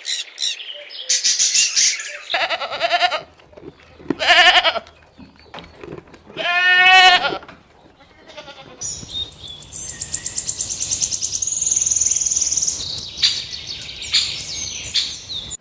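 Goat bleating: several short calls, then one long, wavering bleat about six and a half seconds in. After that, a steady high-pitched chirping runs through the second half.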